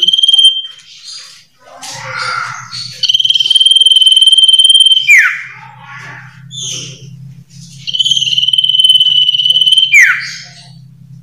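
Iora (sirtu/cipoh) singing: two long, steady high whistles of about two seconds each, each ending in a quick downward slur, with shorter chirps and notes between them.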